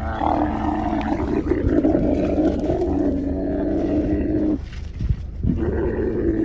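Dromedary camel bellowing in long, rough groans as it is hauled down by its lead rope to kneel, an angry camel protesting at being couched. The bellowing breaks off for about a second about two-thirds of the way through, then starts again.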